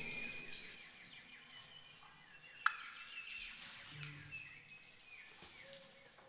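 Soft birdsong effects from the percussion section: repeated chirps and short falling whistled trills. A single sharp click comes about 2.7 s in.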